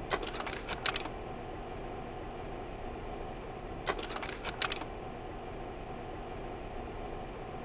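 Carousel slide projector running with a steady fan hum; its slide-change mechanism clicks twice, once at the start and again about four seconds in, each time as a quick run of clicks lasting about a second.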